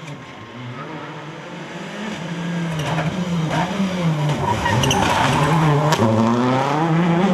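Rally car engine revving hard, its pitch repeatedly climbing and dropping back through gear changes and lifts, growing steadily louder as the car approaches.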